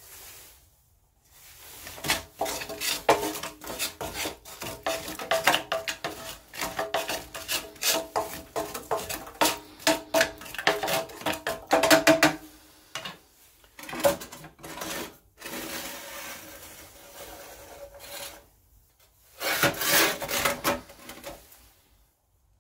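Ash being raked about in the firebox of a small cast-iron wood-burning stove with a wooden stick: repeated scraping and rattling strokes against the grate, with a metallic ring. The strokes are dense through the first half, then sparser, with a last flurry near the end.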